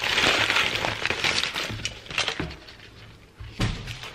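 Aluminium foil takeout wrapping crinkling and rustling as it is pulled open by hand, fading after about two seconds. A short dull thump comes near the end.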